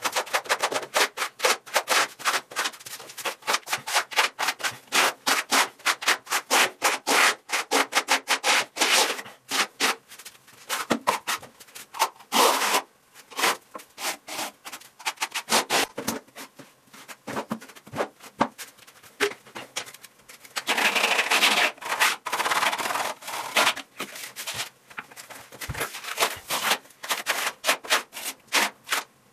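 Steel trowel and spatula scraping lime-based skim coat over a wall in quick repeated strokes, with a steadier spell of scraping about 21 seconds in.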